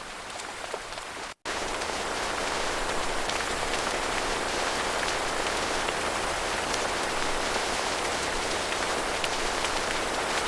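Steady rain, with a brief cut to silence about a second and a half in, after which the rain comes back louder.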